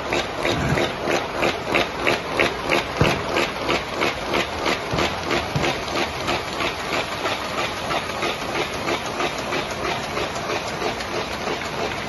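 Print finishing line with an MBO FC 23 UV flood coater running, sheets feeding through: a steady machine hiss and hum with a regular clack about three times a second.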